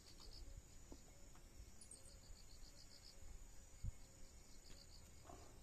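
Faint insects chirping in short, rapid high pulse trains over a steady thin high trill, with one soft thump a little before four seconds in.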